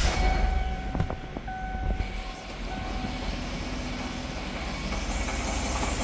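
A 2016 Chevy Tahoe's 5.3-litre V8 starts and settles into a steady idle, with a rattle from under the truck. The rattle comes from the inside of the driver-side catalytic converter crumbling apart.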